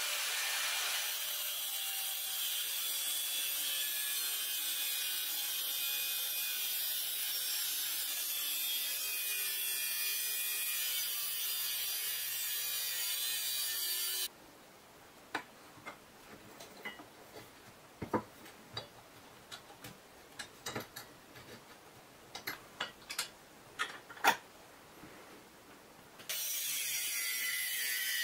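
Angle grinder cut-off disc slicing through square steel tube: a steady, harsh hiss of the disc biting the metal, which stops abruptly about halfway through. A quieter stretch of scattered sharp clicks and knocks follows, and the cutting starts again about two seconds before the end.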